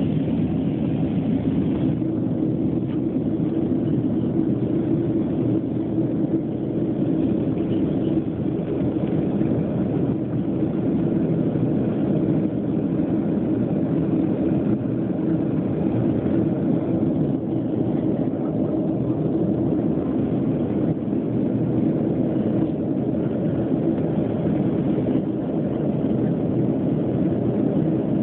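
Steady, deep drone of a Boeing 737 airliner's jet engines and airflow heard inside the passenger cabin in flight, holding an even level throughout.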